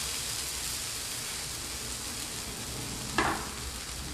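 Buttered grilled cheese sandwich sizzling steadily on a hot electric flat griddle, easing slightly, with one short sound about three seconds in.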